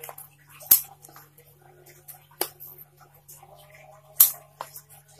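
Scissors snipping twigs and leaves off a potted mulberry while it is pruned: a few sharp snips a second or two apart, the loudest near the end.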